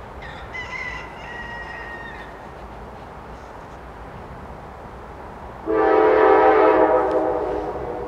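GE Dash 9 freight locomotive's air horn sounding one loud chord of several notes about six seconds in, easing off near the end. A fainter high-pitched tone sounds briefly in the first two seconds.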